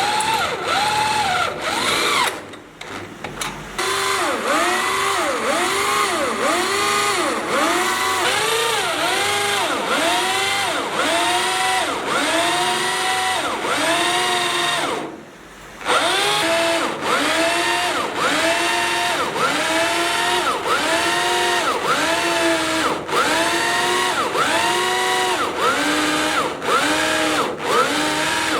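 Power drill boring into steel, its pitched whine rising and falling over and over, about one and a half times a second. It stops briefly twice, near the start and about halfway through, and then starts again.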